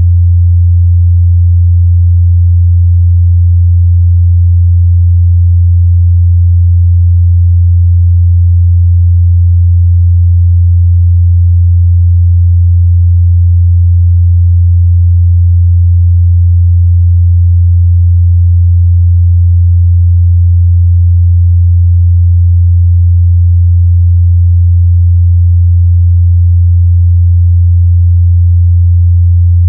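A steady, loud 87 Hz sine-wave test tone: a single unwavering low hum used to check speaker and headphone mid-bass response.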